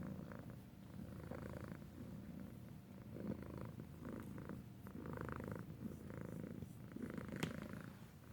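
Domestic cat purring, the purr swelling and fading with each breath about once a second. A single sharp click near the end.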